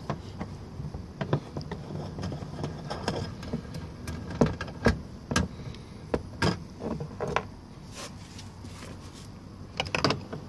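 Irregular clicks and taps of a hand tool removing a bolt from a GM truck's inside door panel, in scattered groups.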